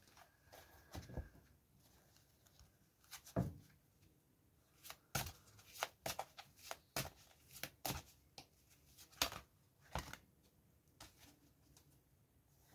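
A deck of large divination cards being shuffled and dealt out by hand: a string of sharp, irregular card snaps and slaps, most of them between about three and ten seconds in.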